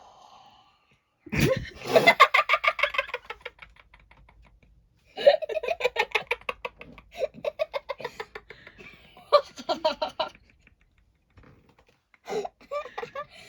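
Hearty laughter in four bouts of quick, pulsing 'ha-ha' sounds with short quiet gaps between them. The loudest and longest bout comes first.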